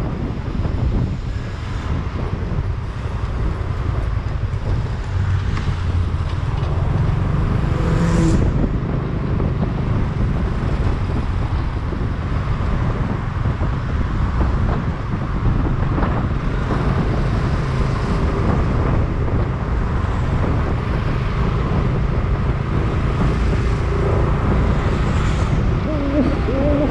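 Steady low rumble of street traffic and road noise, with two brief louder swells, about eight seconds in and again near the end.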